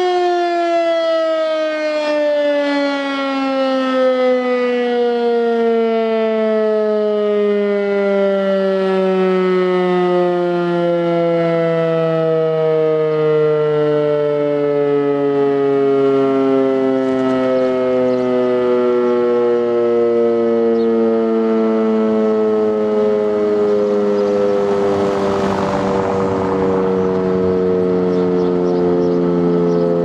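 Electromechanical rotor siren running down after its test tone: its wail falls slowly and smoothly in pitch. A short rushing noise comes through near the end.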